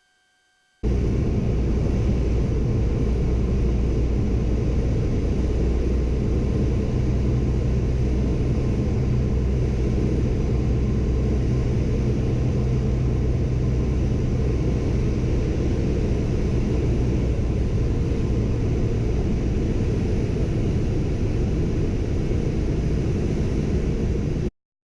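Piper Comanche 250 single-engine piston airplane running, a steady engine drone with airflow noise. It cuts in suddenly about a second in and stops abruptly just before the end.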